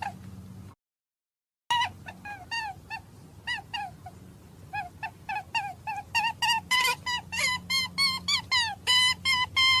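A rapid series of short, high-pitched animal peeps or squeaks, each rising and falling in pitch, coming faster and louder in the second half. About a second in they are broken by a brief stretch of dead silence.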